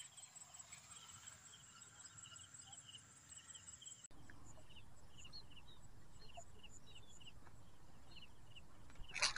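Faint insects chirping, short high chirps repeating a few times a second over a low outdoor hiss. A brief loud burst of noise comes just before the end.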